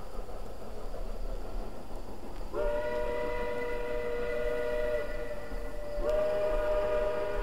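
Distant steam whistle of a 2-8-0 steam locomotive, echoing from over a mile away in a deep wooded valley: a chime whistle sounding a chord of several tones. A first blast of about two and a half seconds starts a little over two and a half seconds in, and a second blast starts about six seconds in, over a faint hiss.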